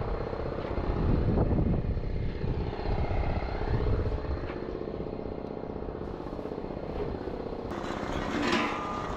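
Diesel engine running steadily with a low, rapid throb; a brighter, hissier noise joins in near the end.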